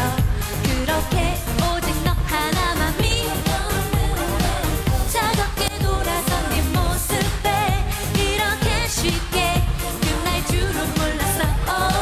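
A woman singing a Korean pop song over a dance backing track with a steady beat.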